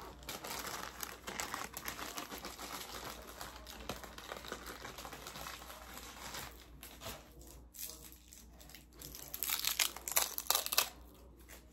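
Paper crinkling and rustling as small paper crafts are handled: a steady run of crackling through the first half, quieter for a few seconds, then louder crinkles near the end.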